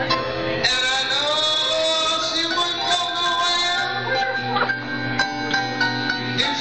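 Live band music with a voice singing over the instruments, held and sliding notes over a steady accompaniment.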